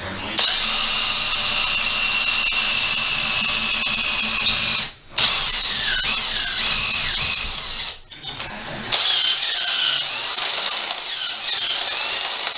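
Handheld electric drill boring a hole through the center of a vent hood mounting bracket, the bit whining high as it cuts. It runs in three long stretches, stopping briefly about five seconds in and again around eight seconds in.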